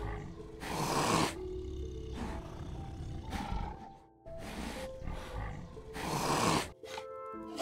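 Tiger growling in about five short bursts, the loudest about a second in, over background music.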